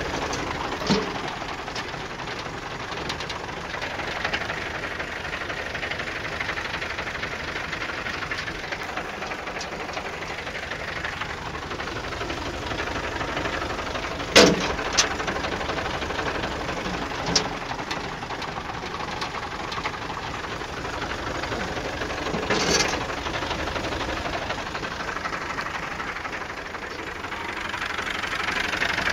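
Massey Ferguson 135 tractor engine running steadily at idle, with a few sharp clicks or knocks over it and the engine getting louder near the end.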